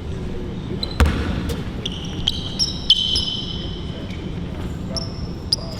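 A basketball bouncing on a court during one-on-one play, with a few hard bounces, the loudest about a second in. Several short, high sneaker squeaks follow from about two seconds in.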